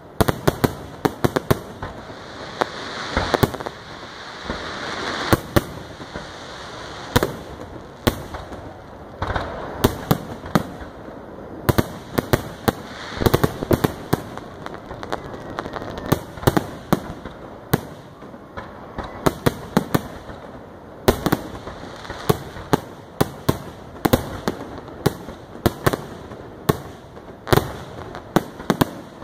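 Fireworks display: aerial shells bursting in quick, irregular succession, often several sharp bangs a second.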